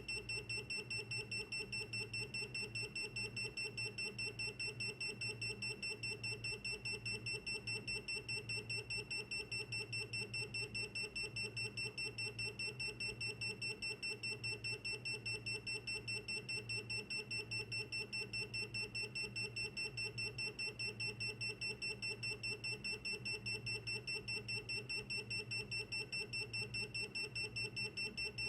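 Electronic alarm buzzer beeping continuously: one high tone pulsing in rapid, evenly spaced beats, several a second, without letup.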